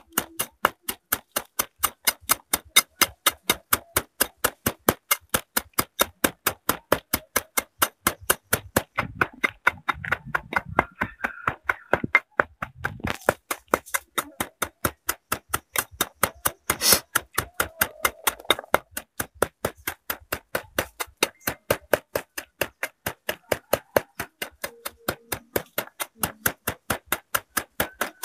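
Wooden pestle pounding red chilies and salt in a small ceramic bowl: a steady knock about three times a second.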